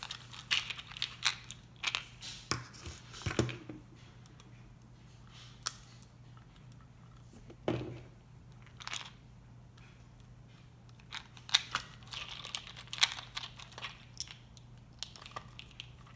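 Plastic case of a Ridgid 18-volt drill battery pack creaking, clicking and scraping as it is squeezed and wiggled by hand to work its halves apart. The sounds come in bursts, with a quieter stretch in the middle.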